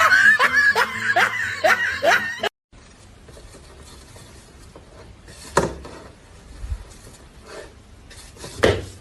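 A person laughing in a quick run of short bursts, about three a second, which cut off suddenly about two and a half seconds in. After that there is a low hiss with two sharp knocks.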